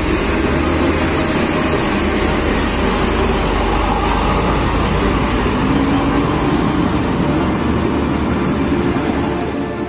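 Mercedes-Benz coach's diesel engine running as the bus pulls away, a loud steady drone that falls off right at the end.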